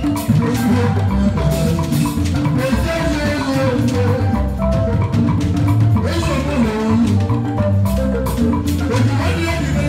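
Live band music playing: a repeating bass line under drums and percussion, with a bright melodic line above.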